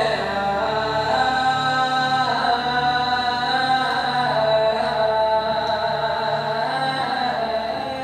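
Music: a chant-like singing voice holding long notes that change every second or so, over a low tone that pulses on and off.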